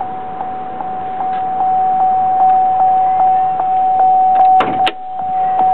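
Vehicle warning chime in the 2007 Chevrolet Avalanche's cab, one steady tone pulsing evenly about two and a half times a second. A brief sweeping squeak comes about four and a half seconds in.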